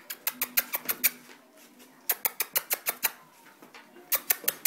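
Australian Shepherd's claws clicking on a tiled floor as the dog walks, in three quick runs of sharp clicks about a second each.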